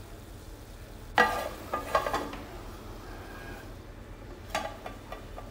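Flat aluminium lid being set onto a clay cooking pot: a metallic clatter about a second in, a few lighter knocks after it, and another small clink near the end as the lid is settled. A faint sizzle of the frying gourd runs underneath.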